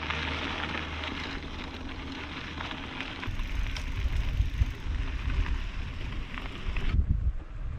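Bicycle tyres rolling over a loose dirt road, a steady crackling hiss, with wind buffeting the microphone and growing stronger from about three seconds in. The hiss drops away suddenly about seven seconds in.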